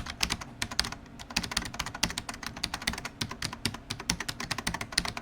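Rapid, irregular clicking of keys being typed on a keyboard.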